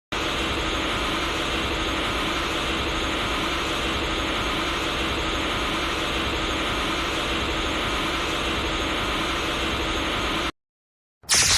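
Anime energy sound effect: a steady rushing hiss with a faint pulsing hum beneath, held evenly for about ten seconds before cutting off suddenly. After a brief silence, a short, loud new effect starts just before the end.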